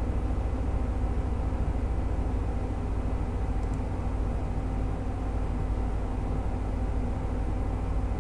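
A steady low rumble with a constant hum over it, unchanging throughout.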